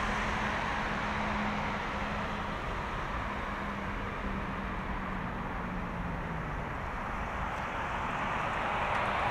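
Jet engine noise from a Boeing 767-300F freighter landing and rolling out: a steady wash of sound with a low hum that sags slightly in pitch midway, growing louder near the end.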